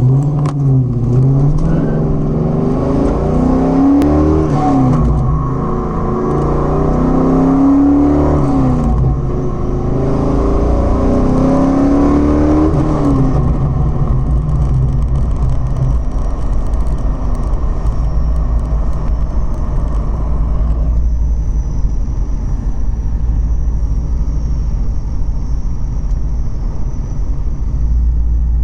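2006 Pontiac GTO's 6.0 L V8 accelerating through the gears, its pitch climbing and dropping several times, then settling into a steady drone. About two-thirds in, a thin, steady high-pitched whine appears and holds over the drone. The owner says this whine starts once in fourth gear and lasts until the car is nearly stopped, whether in or out of gear.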